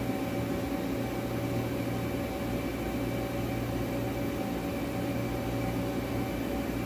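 Steady hum of workshop machinery running, with several fixed tones over an even noise.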